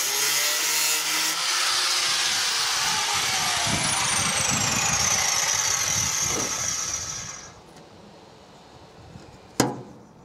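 A power tool cutting into sheet-steel car bulkhead, its pitch sliding slowly downward, stopping abruptly about seven and a half seconds in. A single sharp knock follows near the end.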